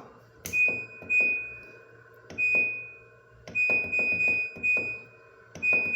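Buttons on a Daewoo front-loading washer-dryer's control panel being pressed, each press a click followed by a high electronic beep, about six times with some in quick succession, as the wash temperature setting is stepped through.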